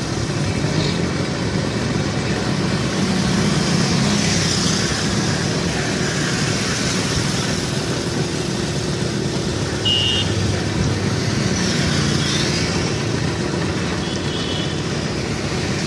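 Town road traffic heard while riding among motorcycles and scooters: a steady rumble of two-wheeler engines with road and wind noise. A short high horn beep sounds about ten seconds in, and another comes near the end.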